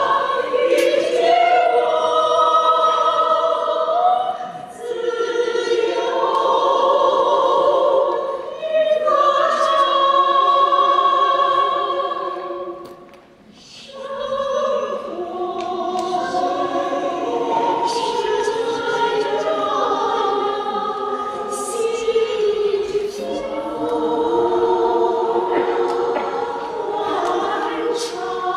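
Small women's choir singing a cappella in several-part harmony, with long held chords. The voices break off briefly for a pause about halfway through, then come back in.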